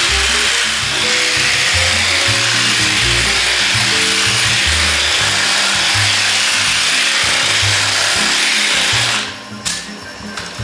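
Air-powered sander running against a fiberglass body panel, a steady hiss that stops about nine seconds in. Background music with a stepping bass line plays underneath throughout.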